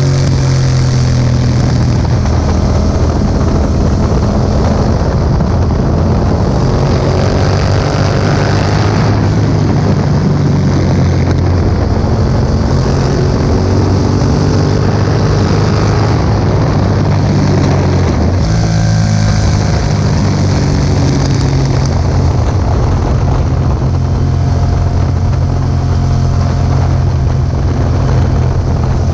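2018 Yamaha MT-07's parallel-twin engine running through an Akrapovic exhaust under way: revs climb and fall, dropping sharply twice, about nine and eighteen seconds in, with wind noise on the microphone.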